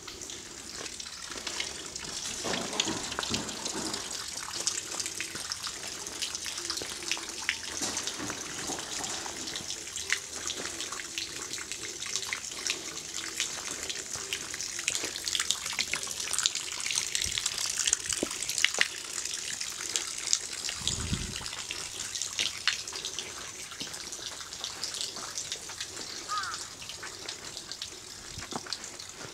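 Running water: a steady splashing hiss full of small drips and ticks, with a faint low hum under it and a short low thud about 21 seconds in.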